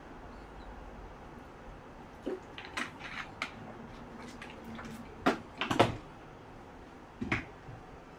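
A few sharp clicks and knocks from a small drink bottle being handled and set down on a desk, the loudest ones about five to six seconds in and another about seven seconds in.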